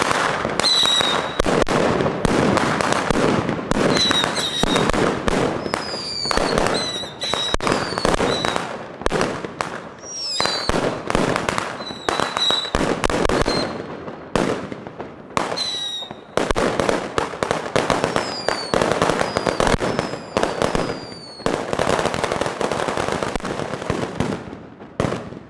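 A ground firework going off: a loud, dense, fast crackle of small bangs, with short shrill whistles mixed in throughout, several of them gliding down in pitch. It dies down near the end.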